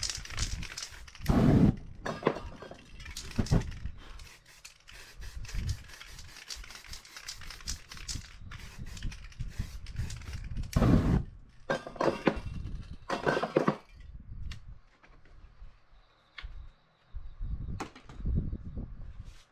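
Aerosol spray paint cans hissing in short bursts, with metal cans clinking and knocking as they are handled and set down on the table.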